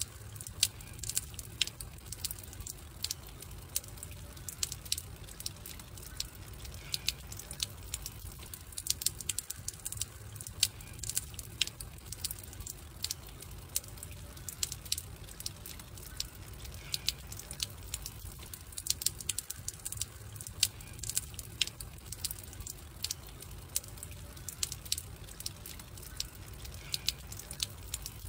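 Wood fire crackling: irregular sharp pops and snaps over a low, steady rumble, the same stretch repeating about every ten seconds.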